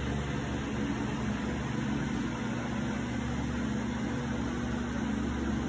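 Steady machine hum and hiss with a constant low tone, unchanging throughout.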